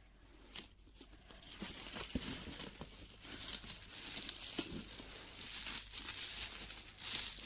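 Crinkling and rustling of packaging being handled, with scattered light taps and clicks.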